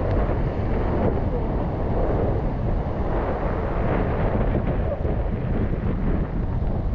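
Steady wind buffeting the microphone, with sea surf breaking and washing over the rocks of a jetty.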